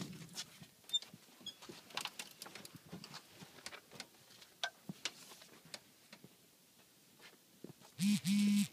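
Faint scattered clicks, taps and rustles of a person climbing out of a Cessna 172's cabin seat and handling a paper checklist at the open door. About eight seconds in there is a short loud burst of voice.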